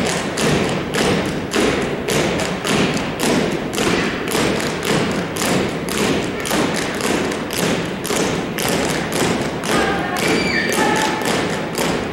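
A drill team's boots stamping on a hardwood gym floor in unison, a steady beat of thumps about twice a second.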